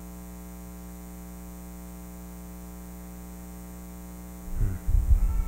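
Steady electrical mains hum. About four and a half seconds in, a short, loud, low rumble-like thump on the microphone.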